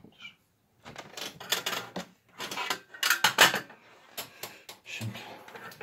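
Small tools and wires handled on a workbench: irregular clattering and scraping in bursts with sharp clicks, loudest about three seconds in.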